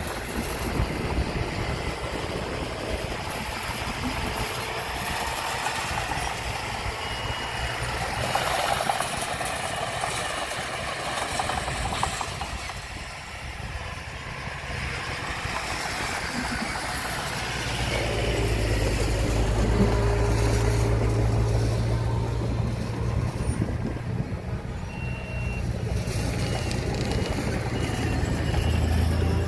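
Heavy diesel construction machinery running at a work site, with the engine drone growing louder and heavier about two-thirds of the way in. Near the end a reversing alarm beeps about once a second.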